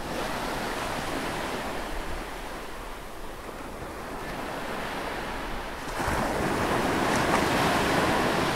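A steady rushing noise with no tune or voice, swelling louder about six seconds in.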